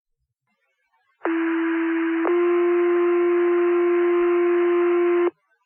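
Fire-department two-tone sequential paging alert over the dispatch radio. A steady low tone of about a second steps straight into a slightly higher, louder tone held for about three seconds, then cuts off. It is the tone-out that sets off the Wingham firefighters' pagers before the voice page.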